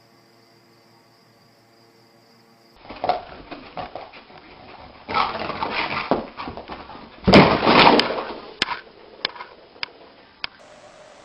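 A few quiet seconds with faint steady tones, then a dog barking in three loud outbursts, followed by a few sharp clicks.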